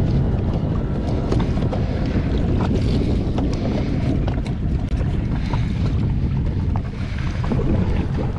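Wind buffeting the microphone in a steady low rumble, with scattered light clicks and knocks from a rope being worked around a boat's bow cleat.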